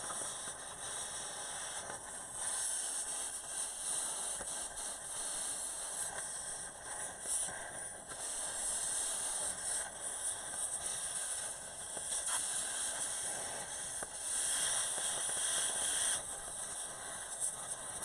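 A metal-cutting torch hissing steadily as it cuts through a part near a skid steer's hydraulic ram, the hiss swelling and dipping a little.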